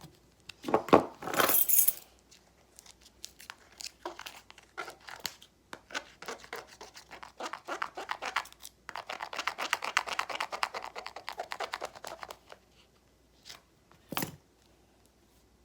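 Close handling of a phone: rapid scratching and crackling as plastic film is peeled and rubbed, with a loud burst about a second in and a longer scrubbing stretch from about nine to twelve seconds. A single knock comes near the end.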